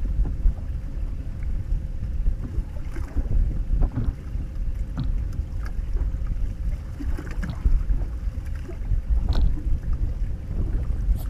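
Wind buffeting an action camera's microphone on an open boat, a steady low rumble, with scattered small knocks and taps over it.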